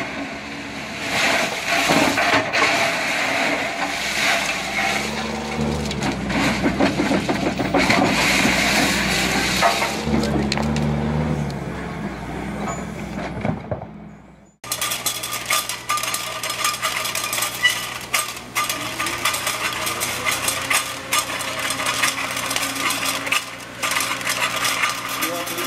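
Rosenqvist SR60 rail-changing machine working along a track, steel rail scraping and clanking over the ballast with machinery running. Just over halfway it cuts off abruptly, and a can-lid de-stacking conveyor takes over, running with a steady motor hum and light metallic clinks.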